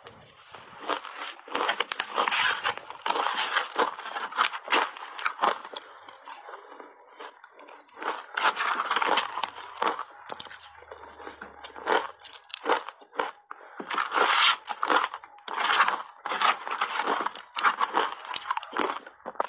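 Block ice being bitten and chewed, crunching and cracking in dense runs of sharp snaps, in bursts with brief quieter gaps between mouthfuls.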